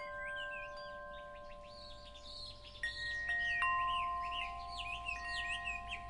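Wind chimes ringing, with long held tones struck afresh several times, over birds chirping repeatedly.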